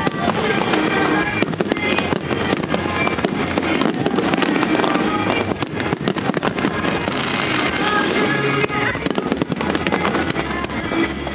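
Fireworks display: many sharp bangs and crackles in quick succession, with music playing underneath.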